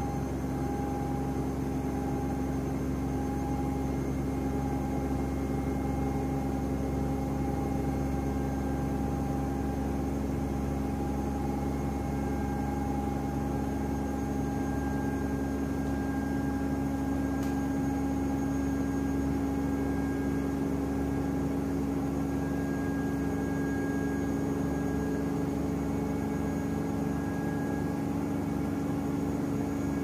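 Samsung WW10H9600EW front-loading washing machine spinning at high speed: a steady hum with a held motor whine that grows slightly stronger in the second half.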